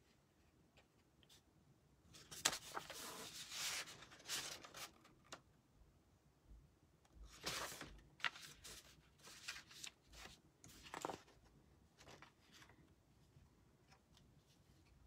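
Quiet rustling and handling of paper and card-making supplies on a table, in two spells of scattered scrapes and rustles, with a sharp tap about two and a half seconds in.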